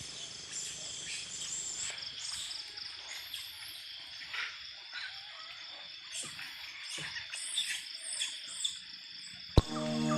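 Steady insect chorus: several high, unbroken trilling tones with scattered short high calls over them. Near the end a single sharp knock, the loudest moment, and then music begins.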